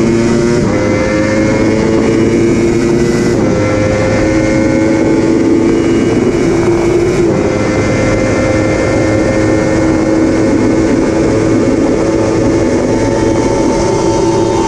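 Yamaha R1 inline-four engine at full throttle in a top-speed run, its pitch slowly climbing and dropping with upshifts about a second, three and a half seconds and seven seconds in, then pulling in top gear. Heavy wind rush on the helmet-mounted microphone at over 200 km/h.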